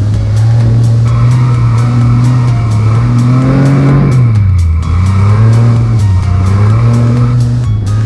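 Dune buggy engine running at high revs while the buggy spins donuts in loose sand; the revs dip about halfway through and climb again.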